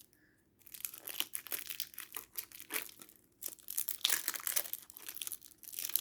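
Crinkly plastic wrapping on a stack of Pokémon cards being torn and crumpled open by hand. The crackling is irregular and starts about half a second in.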